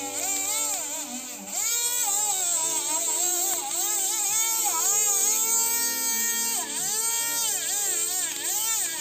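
Battery-powered BG W-05 mini rotary grinder whining at very high speed with a radial attachment against an electroformed copper branch; its pitch repeatedly dips and rises as the tool is pressed in and eased off.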